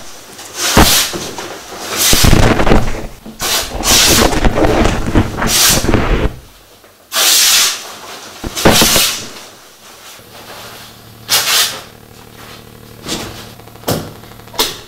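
Large painted cloth sheets being shaken, dragged and crumpled by hand: a string of loud rustling, flapping swishes, some short and some lasting about a second. A faint low hum sets in about ten seconds in beneath the fainter handling sounds near the end.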